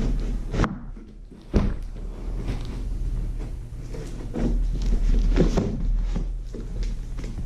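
Packaging being handled and opened by hand: irregular knocks, clunks and rustling, with a sharp knock about one and a half seconds in, over a steady low hum.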